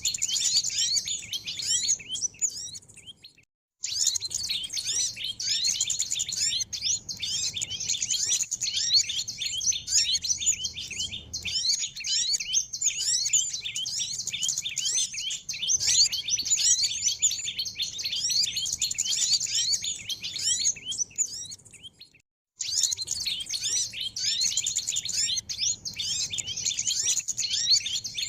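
Bird-lure recording of many small birds chirping together in a dense, rapid, high-pitched chorus. It breaks off to silence briefly twice, about three and a half seconds in and again about twenty-two seconds in.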